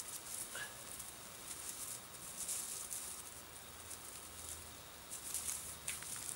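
Faint, irregular rustling and crackling of dry leaf litter as hands work at a tarp's corner, staking it down and tying its paracord.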